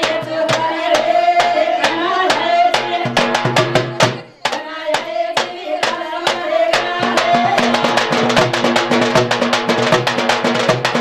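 Women singing a traditional Banjara wedding song over a drum beat. About seven seconds in the singing stops and the drumming picks up into faster, denser strokes.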